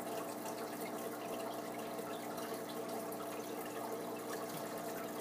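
Steady background noise: a low hum made of several steady tones over an even hiss, with no events or changes.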